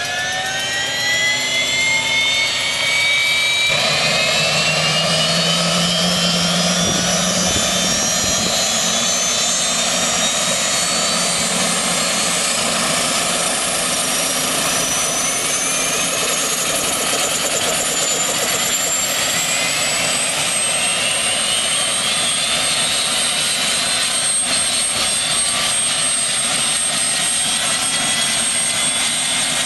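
Bell 206 JetRanger's Allison 250 turboshaft engine starting: a turbine whine climbs steadily in pitch as the starter spins it up, and about three and a half seconds in a roar joins as the fuel lights off. The whine keeps rising for some twenty seconds, then levels off while the engine runs on with the main rotor turning.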